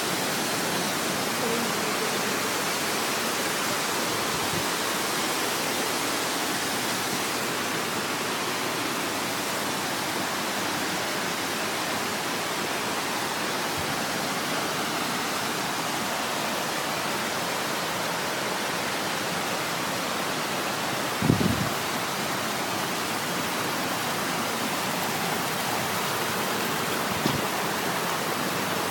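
Large waterfall pouring steadily, a constant even rush of falling water. Two brief thumps sound above it, one about three-quarters of the way through and one near the end.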